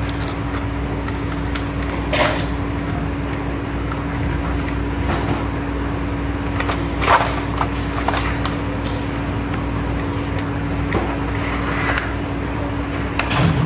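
Plastic XDA-profile keycaps being handled and pressed onto a mechanical keyboard, giving a scattering of short, sharp clicks a second or two apart over a steady background hum and hiss.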